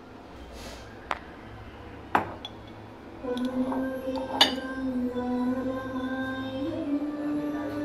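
Three sharp clinks of glass kitchenware, about a second apart. Background music comes in about three seconds in, a held note that steps up in pitch near the end.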